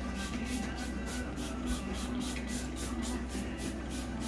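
Trigger spray bottle squirting degreaser onto a greasy moped engine in quick hissing spurts, about four a second, to soak the grease loose. Faint music plays underneath.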